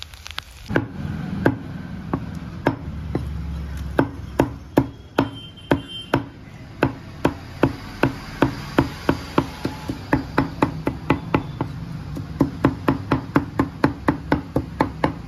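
Raw chicken being chopped with a large knife on a wooden log block: a run of sharp knocks, sparse and uneven at first, quickening to about four a second near the end.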